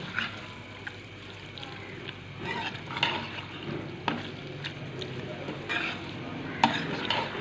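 Chicken pieces frying in masala in a metal pot, stirred with a metal spoon: a steady sizzle with irregular scrapes and clinks of the spoon against the pot.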